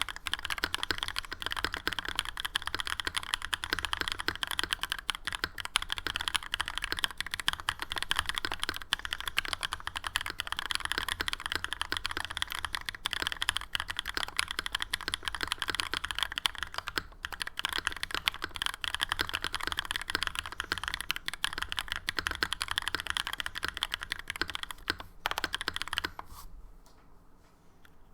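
Fast, continuous typing on a Novelkeys NK87 aluminum-case TKL mechanical keyboard with lubed Createkeebs SOTC linear switches in an aluminum plate, tray-mounted with plate foam and tape mod, under GMK keycaps. The keystrokes run densely together, break off for about a second and a half near the end, then start again.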